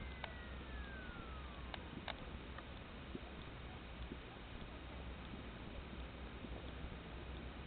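Faint outdoor background noise picked up by a small onboard camera: a steady hiss with a low rumble and a few light clicks. A faint whistle falls in pitch over the first two seconds. The model's engine is stopped and makes no sound.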